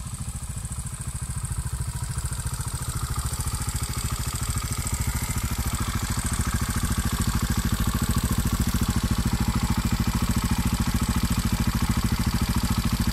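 Beta Alp 200 motorcycle's single-cylinder, air-cooled four-stroke engine idling with a steady, even beat, getting gradually louder as the microphone moves in close to the engine.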